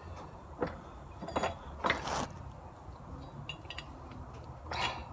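A few separate metal clinks and scrapes as steel pieces are set down and a blacksmith's vise holding a filing-vise insert is opened up.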